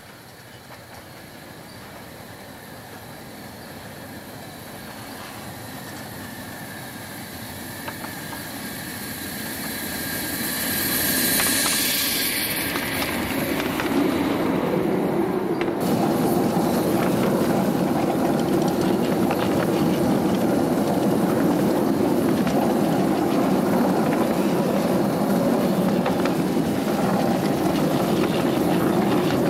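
Home-built one-third-scale Shay steam locomotive on 12-inch gauge track approaching and passing, growing steadily louder over the first ten seconds or so. A hiss comes at its closest point, then a loud steady noise carries on to the end.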